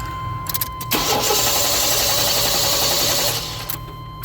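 A few short clicks, then a car engine cranking rhythmically on its starter for about two and a half seconds without catching before the cranking stops: a crank-no-start, with no fuel pressure found.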